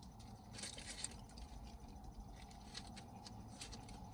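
Faint, close-up mouth sounds of someone chewing a taco: scattered soft wet clicks and smacks, a small cluster of them about a second in.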